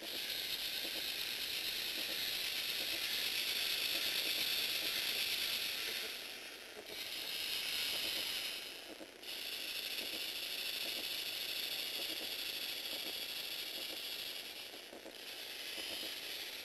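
Lego Mindstorms NXT motors driving a plastic tread-link conveyor: a steady whirring with a ratcheting clatter of gears and links. It starts suddenly and drops off briefly about seven and nine seconds in and again near the end before picking up again.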